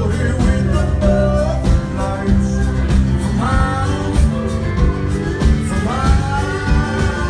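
Live country band playing a song: a man sings long held notes over acoustic guitar and the band.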